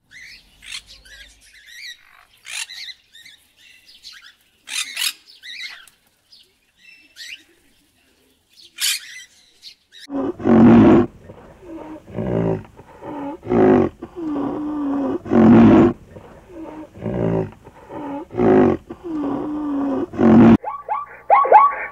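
Birds chirp sporadically for about ten seconds. Then a large wild animal gives loud, deep calls over and over, about one every second and a half, with a held low moan between them.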